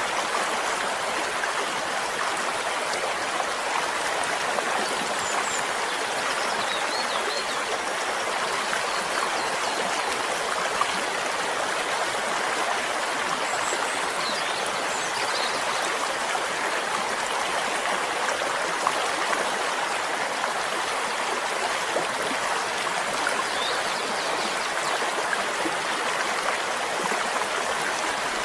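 Flowing stream: a steady, even rush of running water that does not change.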